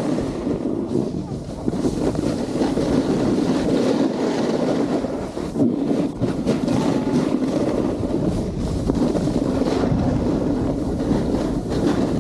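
Snowboard sliding and carving over snow, a continuous scraping hiss, mixed with wind buffeting the camera's microphone.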